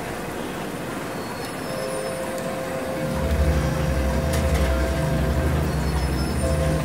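A dense, noisy rumbling drone with a steady held hum tone above it. A heavy low throbbing rumble comes in about three seconds in.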